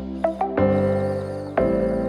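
Background music: sustained chords with sharp note attacks, changing chord about half a second in and again near the end.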